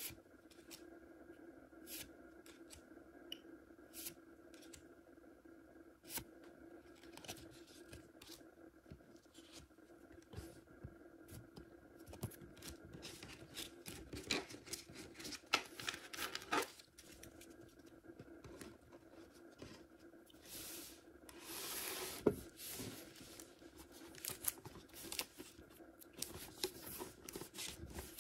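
Hands handling trading cards and a shrink-wrapped tin lunch box: scattered light clicks and crinkles, with plastic wrap tearing and rustling in two busier stretches past the middle.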